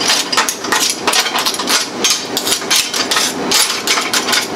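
Lava rocks on a broiler's metal grate clattering against each other and the grate as a gloved hand stirs them, a rapid, irregular run of clicks and knocks. The rocks are being shaken so that the grease dust falls through. A steady hum sits underneath.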